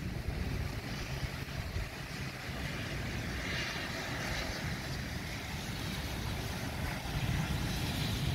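Steady hiss of rain falling over a city street, with an uneven low rumble of wind on the microphone.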